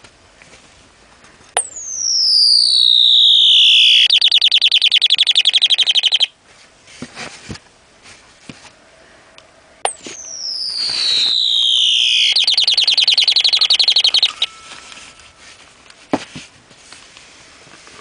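Electronic birdsong from a vintage wooden singing birdhouse's speaker, played twice the same way. Each time a sharp click is followed by a loud whistle that slides down in pitch for about two seconds, then a fast trill of about two seconds that cuts off abruptly.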